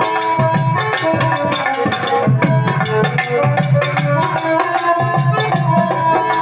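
Devotional instrumental accompaniment: sustained melody notes over a steady hand-drum rhythm, with a shaker or rattle.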